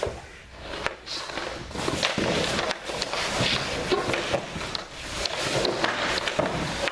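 Hockey goalie drill: skates and goalie pads scraping and sliding across the rink surface as the goalie drops into saves, with irregular sharp clacks of pucks and sticks.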